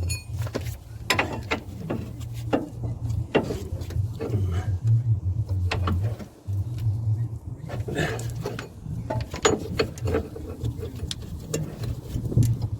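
Irregular metallic clicks and knocks of tools and car parts being worked while separating a front hub from the lower control arm, over a steady low rumble.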